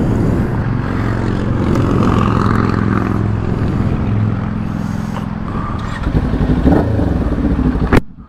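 Kawasaki Ninja 400 motorcycle engine idling, with a sharp click near the end.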